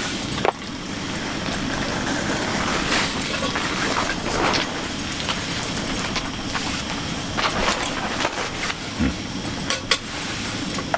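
A metal fork scraping and clicking against a small metal camp pot as saucy pasta is stirred and scooped, a handful of sharp clicks spread through, over a steady low rushing sound.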